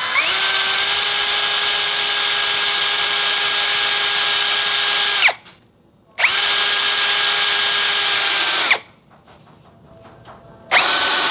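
Yasuka YID318 cordless brushless drill driving a 5 cm hex-head screw into mahogany in screwdriving mode. The motor runs with a steady high whine in three runs, rising in pitch briefly as each one starts. It stops about five seconds in and again near nine seconds, and starts once more shortly before the end.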